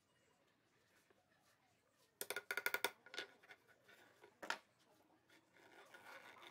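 Quiet handling of a thin wooden strip and a hammer on a wooden board: a quick run of light clicks and knocks about two seconds in, and a single louder knock about four and a half seconds in as the hammer is set aside, then faint rubbing of the strip on the board.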